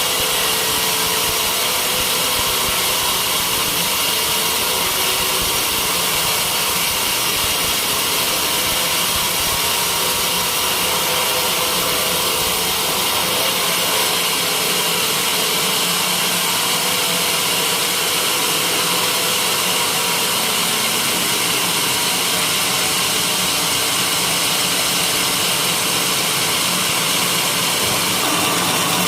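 Sawmill running, a loud, steady machine noise, as it saws white teak.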